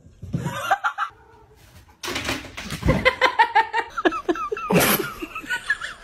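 People laughing and giggling in short choppy bursts. The laughter is quieter and broken at first, then louder and denser after a sudden start about two seconds in.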